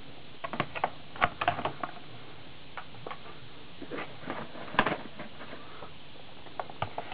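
Plastic blister-pack cards holding die-cast toy cars being handled and shuffled: scattered clicks and crinkles of plastic and card, with a few louder taps about a second in and near the middle.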